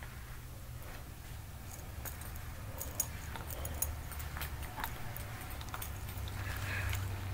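Scattered small clicks, taps and rustles of things being handled close by, over a steady low hum.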